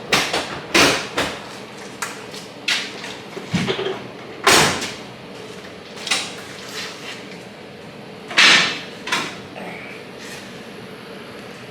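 Scattered clunks and scrapes, about nine, irregularly spaced, the loudest about four and a half and eight and a half seconds in, as the wagon is eased onto wheel scales and ramp blocks.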